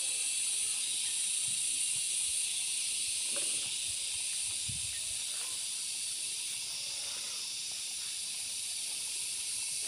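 A steady high-pitched hiss, like a constant outdoor insect chorus or recording hiss, with a faint distant voice briefly about three and a half seconds in.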